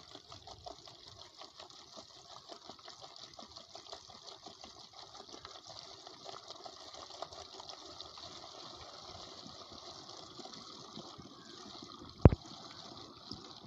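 Diesel fuel pouring in a steady trickle from a plastic jerrycan into a plastic bottle. A single sharp knock about twelve seconds in.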